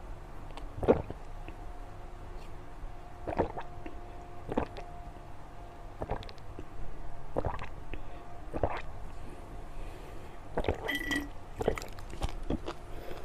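Close-miked wet mouth sounds of someone eating sweets: squishy chewing and sucking, with a short smack every second or two.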